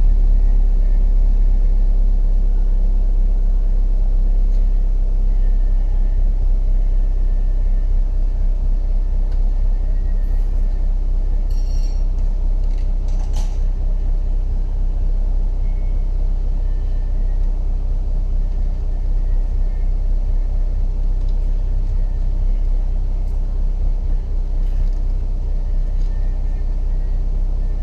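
2016 Ford Fiesta's 1.6-litre four-cylinder engine running at a steady idle with a low, even drone, demonstrated running for sale. A couple of faint clicks come about halfway through.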